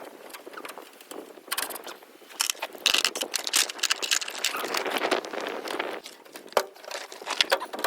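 Hand work on a combine's metal shield: irregular scraping, rattling and sharp clicks of parts being handled and pried, with crackling of loose debris. It is busiest and loudest from about three seconds in.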